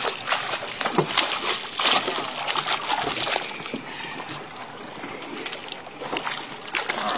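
Hooked spotted mackerel thrashing at the water's surface alongside the boat: a quick run of splashes, loudest in the first three seconds or so, then quieter sloshing.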